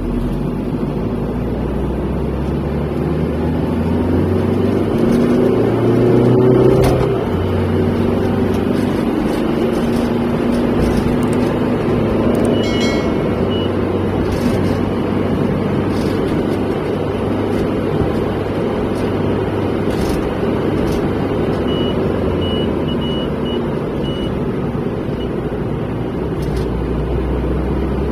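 Car driving along a busy road, its engine and tyre noise heard from inside the cabin as a steady low rumble, with a rising engine tone as it speeds up about a quarter of the way in. A brief high-pitched beep sounds about halfway through.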